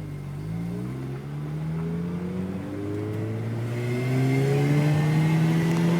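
Mazda RX-8's two-rotor Renesis rotary engine pulling the car away under light throttle. Its pitch rises steadily, drops once about two and a half seconds in as it shifts up, then climbs again, getting louder toward the end.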